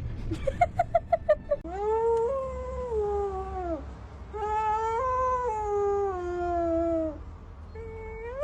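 A pet animal's calls: a quick run of about seven short yips, then two long wailing calls that sag in pitch at the end, with a third starting near the end.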